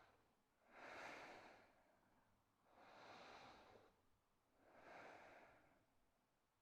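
Faint, slow breaths of a woman holding a yoga stretch, three in all, each about a second long and spaced roughly two seconds apart.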